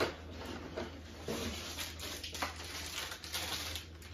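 Rustling and light clicks of plastic graded-comic slabs and packing being handled, over a steady low room hum.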